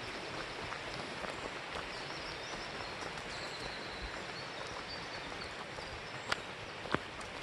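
Steady rushing of a mountain creek, with faint bird chirps about two to three seconds in and two sharp clicks near the end.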